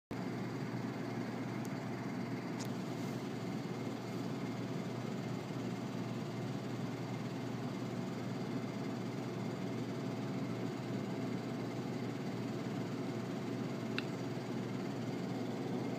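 A steady, even rush with a faint hum, like a machine running, with a faint click about two and a half seconds in and another near the end.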